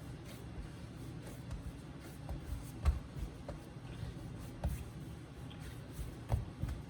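Hands kneading dough on a marble counter: irregular soft thumps and rubbing, the loudest thump about three seconds in.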